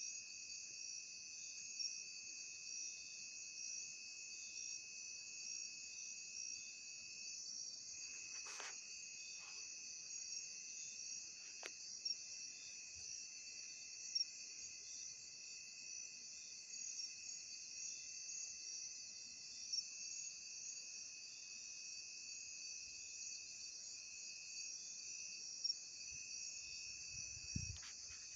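Night insect chorus of crickets or katydids: a dense high-pitched trilling over a steadier single-pitched tone. A few sharp clicks about a third of the way in and a low thump near the end.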